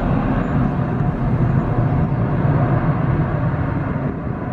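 Airbus A319 jet engines at takeoff thrust as the airliner climbs away, a steady low jet noise that begins to fade near the end.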